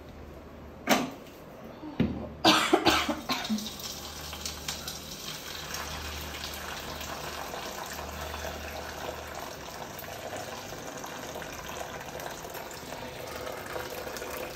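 A person sneezing and coughing, a sharp burst about a second in and a run of coughs around two to three seconds in, set off by pungent fumes from the cooking. After that a steady sizzling noise from the pan fills the rest.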